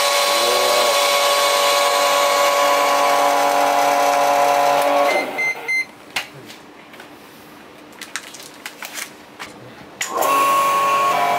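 TOSPACK chamber vacuum packaging machine's pump running with a steady hum and whine. About five seconds in it stops, with a short beep. A few seconds of clicks and bag handling follow, then the pump starts again about ten seconds in as the lid is pressed down.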